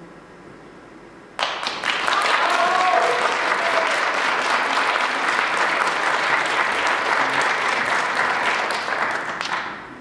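Audience applauding, starting suddenly about a second and a half in and dying away near the end, with a short cheer over it about a second later.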